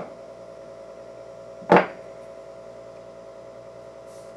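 Steady electrical buzz from the Admiral 329's vacuum-tube amplifier through its loudspeaker, with no audio signal coming through. Two sharp clicks cut across it, one at the start and a louder one just under two seconds in.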